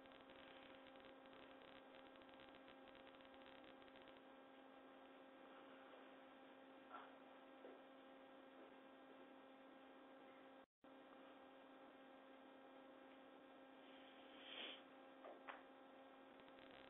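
Near silence: a steady electrical hum in the room tone, with a few faint short sounds about seven seconds in and again near the end.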